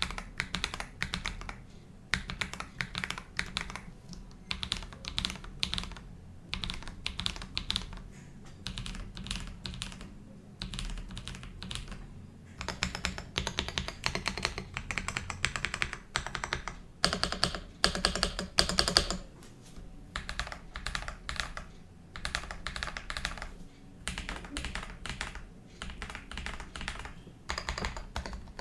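Typing on an Akko 5075B Plus mechanical keyboard with Akko CS Wine White switches and Prunus Lannesiana keycaps: a continuous run of rapid key clacks, loudest and densest a little past the middle.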